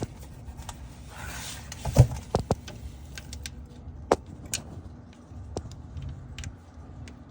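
Hand tools clinking and knocking against metal in irregular sharp clicks, with one louder knock about two seconds in.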